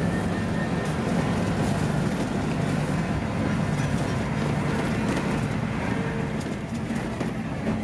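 A bus's diesel engine running steadily while under way, with a low hum and road noise.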